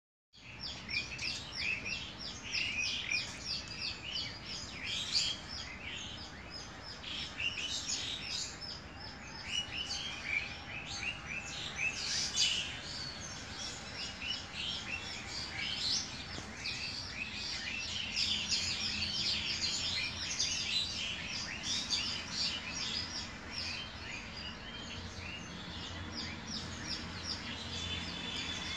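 Many small birds chirping and twittering together, a dense, continuous chorus of short high calls.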